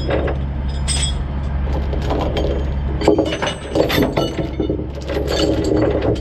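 Steel tie-down chain and a lever chain binder clinking and rattling against a wooden trailer deck as the chain is released and dragged free, many sharp clinks coming thickest over the second half. A steady low hum runs underneath.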